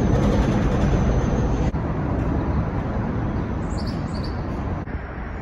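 Steady city street traffic noise, a low rumble of passing cars, changing abruptly twice where the recording jumps.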